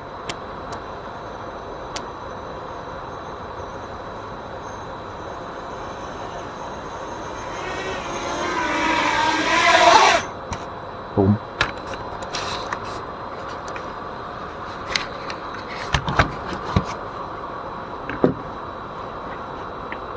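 A long-range FPV racing drone's motors and propellers grow louder as it comes in to land close by, the pitch falling, then cut off suddenly about ten seconds in as the motors stop.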